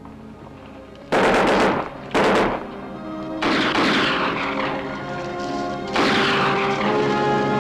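Four loud bursts of gunfire over dramatic orchestral film music: two short sharp bursts close together, then two more a few seconds apart that fade out slowly.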